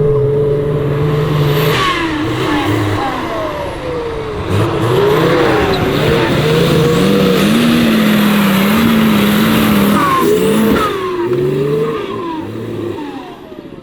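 Off-road 4x4's engine revving hard, over and over, its pitch climbing and falling as the throttle is worked, then dropping away near the end.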